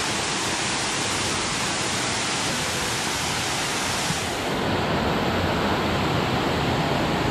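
Steady rush of a waterfall, an even roar of falling water. About four seconds in it becomes duller and heavier, with less hiss and more low rumble.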